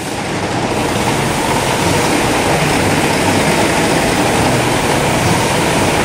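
Steady rushing hiss of water falling in a curtain from the 24-foot Jeep Waterfall, a valve-controlled rain display, into its trough, with the low din of a crowded exhibition hall beneath it.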